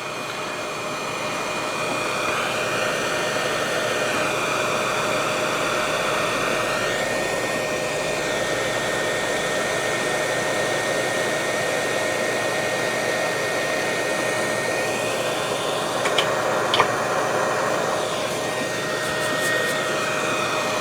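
Hot air rework station blowing steadily, a rush of air with a faint whine, shrinking heat-shrink tubing over a spliced cable; two small clicks near the end.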